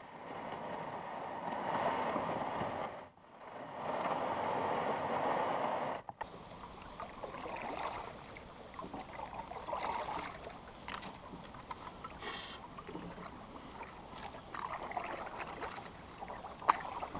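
Water washing and rippling against the hull of a 14-foot Sports Pal canoe as it moves across a calm lake. It is louder at first, drops out briefly twice, then goes on more softly with small splashes and ticks.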